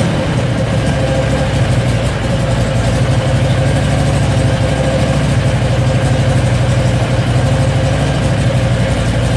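Predator 670cc V-twin engine idling steadily, still cold from a no-choke start, fed by an electric fuel pump with a return line to the tank. It runs without pulsing or surging at idle, the sign that the bypass has eased fuel pressure on the carburettor's needle and seat.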